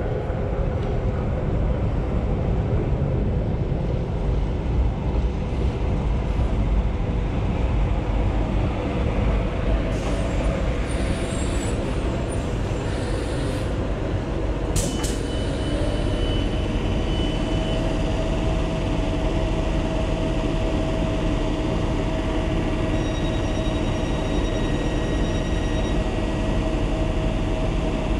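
Tyne & Wear Metrocar running into the platform and slowing: a steady rumble of wheels on the rails and the running gear. About halfway through there is a sharp click and a brief high tone.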